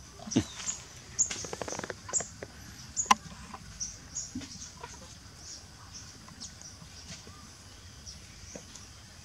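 Animal calls: a short squeal sliding down in pitch, then a rasping call lasting about a second, with repeated short high chirps of small birds throughout.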